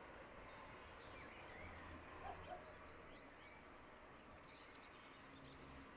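Near silence: quiet room tone, with a few faint bird chirps about two seconds in.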